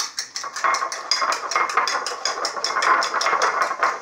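A fork beating eggs in a ceramic bowl, clinking against the bowl in a quick, even rhythm of about six strokes a second.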